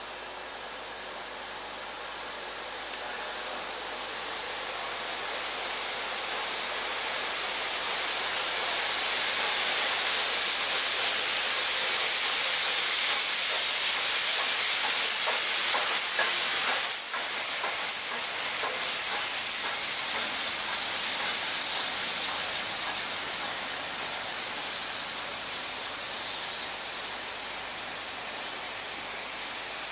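LNER K4 three-cylinder 2-6-0 steam locomotive hissing steam as it runs by with its train, growing louder over the first ten seconds or so. The hiss briefly drops about seventeen seconds in, then carries on a little quieter.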